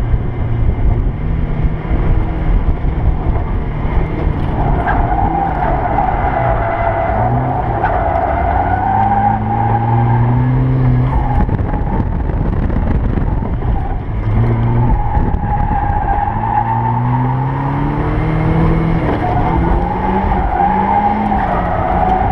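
Turbocharged Mazda Miata's four-cylinder engine revving up and falling back under the driver's foot while drifting, with the tires squealing in two long slides, one about five seconds in and another from about fifteen seconds on.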